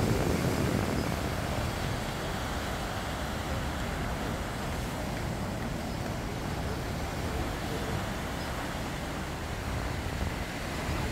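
Steady rushing noise of wind on the microphone and surf breaking on a rocky shore, heaviest in the low rumble and a little louder in the first second or so.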